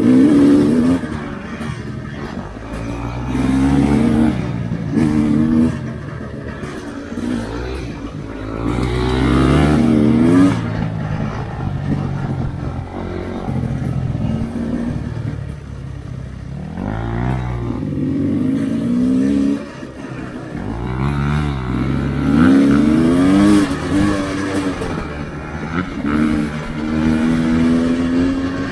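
Dirt bike engine being ridden, revving up and down again and again, its pitch rising and falling with the throttle.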